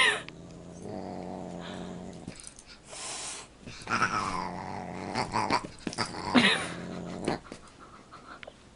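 A pet growling low and steadily in two long stretches, broken by a few sudden louder outbursts, as in a dog–cat standoff.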